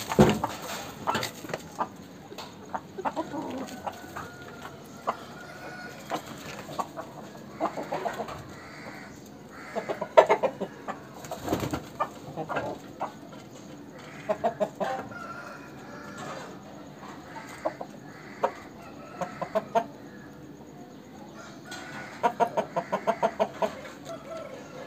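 Aseel roosters clucking, with crowing now and then. Near the end comes a fast run of about ten clucks in two seconds.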